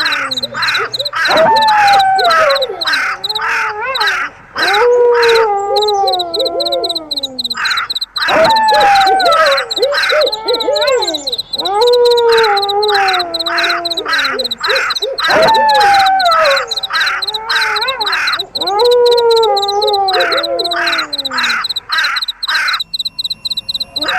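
Wolf howls repeating about every three and a half seconds, each sliding down in pitch, layered over steady cricket chirping and rapid harsh crow caws.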